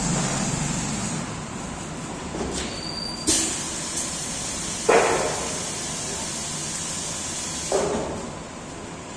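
Semi-automatic blister thermoforming machine running through a forming cycle. A steady hiss runs under three sudden hissing clunks, about three, five and eight seconds in, as its platens move.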